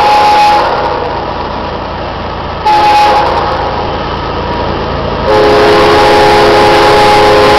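Five-chime air horn on a GE ES44DC diesel locomotive sounding the grade-crossing signal, several notes at once: a long blast ends about half a second in, a short blast comes near three seconds, and another long blast starts about five seconds in and holds. The approaching freight train's low rumble runs underneath.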